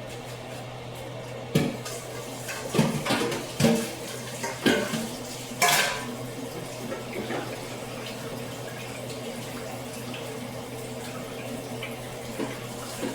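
Kitchen tap running into a sink while dishes and cutlery are handled, with a run of sharp clatters and knocks between about one and a half and six seconds in.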